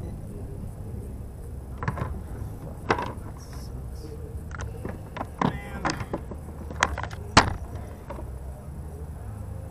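Hard plastic and metal gear being handled aboard a fishing kayak: a handful of sharp clicks and knocks at irregular intervals, the loudest about three quarters of the way through.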